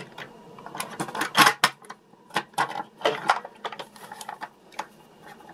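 The Radio Shack Wheelie Bug's hard plastic body and chassis clicking and knocking as they are handled and put together: a run of irregular sharp clicks.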